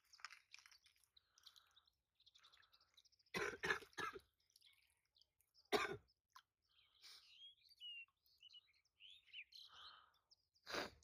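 A person coughing and clearing the throat a few times: twice in quick succession about three and a half seconds in, once near six seconds and once near the end. Faint high bird chirps come in between.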